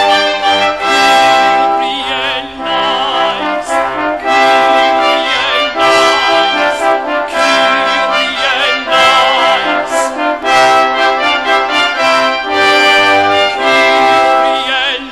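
Brass ensemble playing classical Christmas music, trombones and trumpets sounding several parts together in held notes that change about every second.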